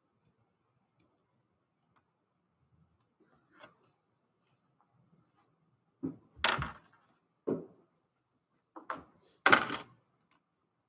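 Several short clinks and rattles of small hard objects being handled, the loudest about six and a half and nine and a half seconds in.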